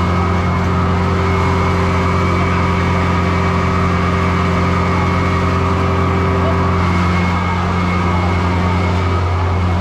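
Fire truck engine running at a steady speed: an even low drone with a thin, steady high tone above it.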